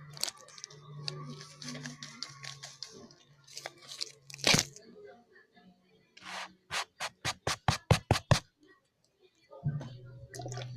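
Hands handling slime and its packaging: rubbing and crinkling with scattered clicks, a sharp crackle about four and a half seconds in, then a quick run of about nine strokes at roughly four a second. A low hum comes and goes underneath.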